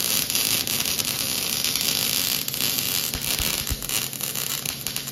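Wire-feed (MIG) welding arc on steel bar stock, crackling and hissing steadily as a bead is laid.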